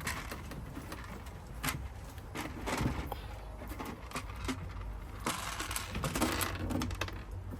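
Handling noise from tucking wiring back into an electric scooter: scattered clicks and knocks of plastic and cable, then a longer rustle and scrape about five seconds in.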